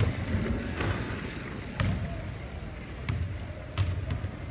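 Irregular sharp knocks, roughly one a second, echoing around a large indoor velodrome hall over a low rumble.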